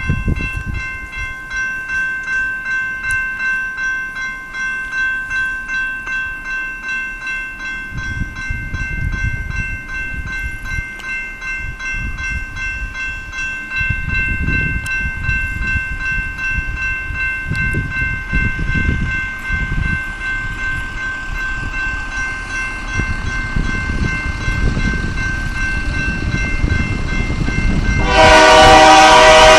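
Grade-crossing bell ringing steadily at a fast even pace over a low rumble that swells and grows louder as the BNSF freight train approaches, then the locomotive's air horn sounds loudly near the end.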